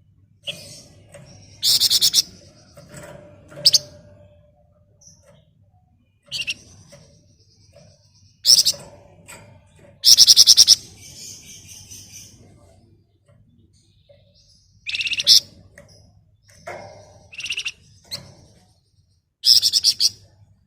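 Flamboyan songbird calling in short bursts of very rapid, high, buzzy trills ('ngebren'), about ten outbursts each lasting under a second with pauses of one to four seconds between them.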